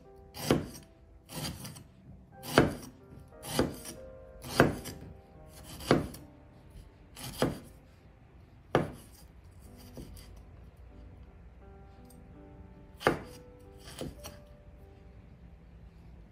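Chef's knife slicing fresh ginger root into rounds on a wooden cutting board: about ten sharp knocks of the blade on the board, roughly one a second, with a pause of a few seconds before two more near the end.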